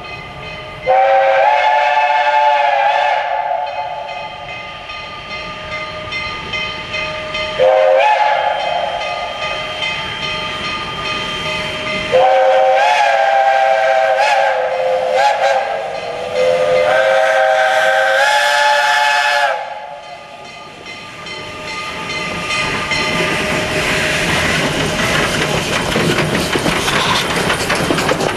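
Steam locomotive No. 65, a 1930 Porter 0-6-0, sounds its chime whistle in four blasts, the second one short, each sliding up in pitch as it opens: the signal for a road crossing. After the last blast, the locomotive's exhaust and rolling wheels grow louder as it comes up and passes close by.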